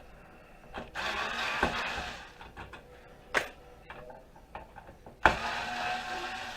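Scraping and rattling with sharp clicks of plastic and metal as a computer's CPU cooling fan is worked loose from its heat sink. There are two longer scraping stretches, one about a second in and one starting with a sharp knock about five seconds in.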